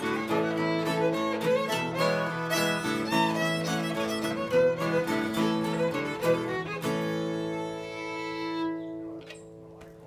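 Old-time Appalachian fiddle tune playing quick notes, then ending about seven seconds in on a long held final chord that rings and fades away.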